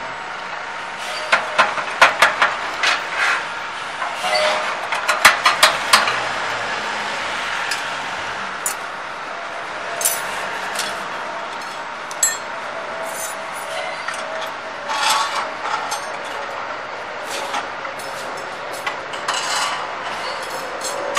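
Steel rods and fittings of a chalk-making machine clinking and knocking together as they are handled during assembly: a quick run of sharp clinks in the first few seconds, then scattered single knocks, over a steady background noise.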